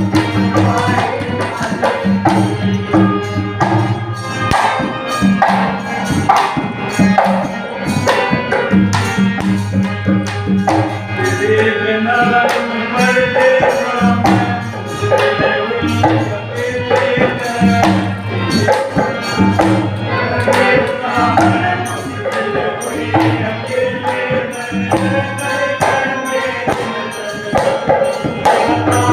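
Devotional bhajan music with a steady hand-drum rhythm under a melody.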